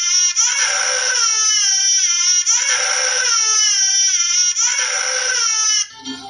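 Recorded baby crying: a run of long wails about two seconds apart, each falling in pitch, stopping shortly before the end.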